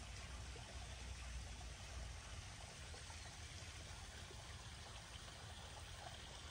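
Faint, steady running water from a backyard koi pond's waterfall, with a low rumble underneath.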